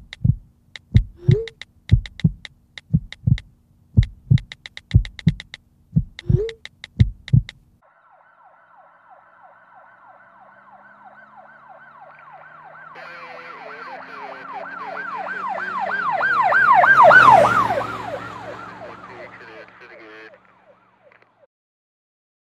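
A heartbeat: paired low thumps about once a second, stopping about a third of the way in. Then an emergency-vehicle siren in a fast rising-and-falling yelp grows steadily louder, peaks and fades away as it passes, with a low engine rumble under it, gone shortly before the end.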